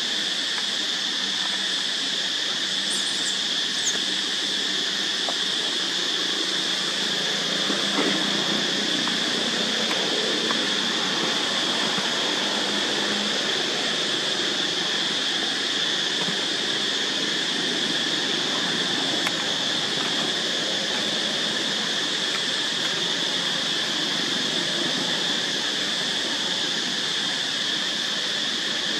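Steady, high-pitched drone of a chorus of insects over an even hiss, with no change in pitch or level.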